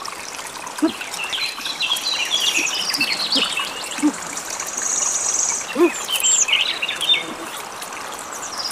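Wild birds chirping and calling again and again over a high insect buzz that comes and goes, with a few brief low mouth sounds from people eating.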